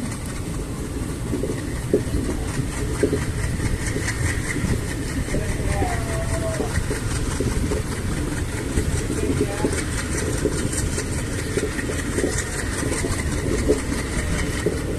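Diesel engine running with a steady low rumble and an even, rapid clatter on top. It is the engine whose smoke and noise problem is being shown.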